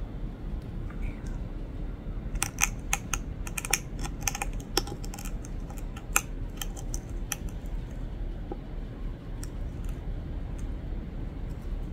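Head lice being crushed under a fingertip pressed into the cluster: a quick, dense run of small crackling clicks starting about two seconds in and lasting about five seconds, then a few scattered clicks near the end.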